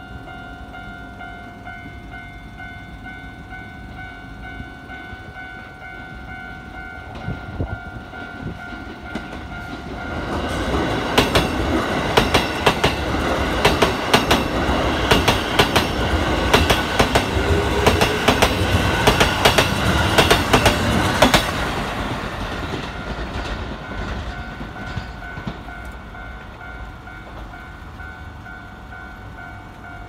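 Japanese level-crossing alarm ringing steadily. From about ten seconds in, a Keikyu 1000-series electric train passes close by for about twelve seconds, its wheels clattering over the rail joints. The train then fades away while the alarm keeps ringing.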